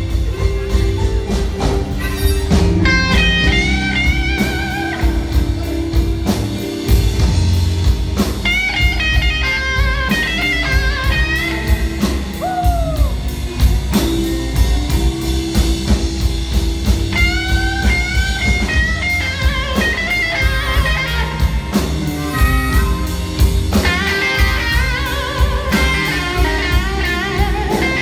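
Live blues band playing an instrumental passage: a lead line with bent, sliding notes over piano, upright bass and drums, with electric guitar prominent.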